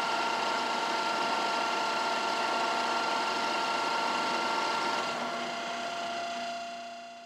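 Ikeda RM-1375 radial arm drill running at its top spindle speed of 1500 RPM: a steady mechanical running sound with a whine of several steady tones. About five seconds in the mix of tones changes, and the sound fades out near the end.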